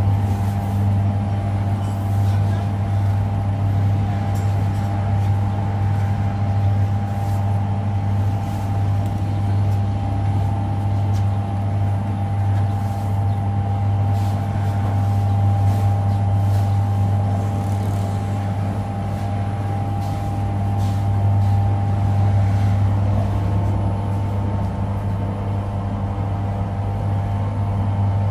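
Bakery machinery running with a steady low mechanical hum and a few faint clicks and knocks.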